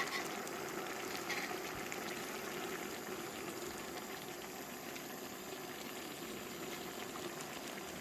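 A pot of meat simmering, a steady bubbling of liquid, with a faint tick or two near the start.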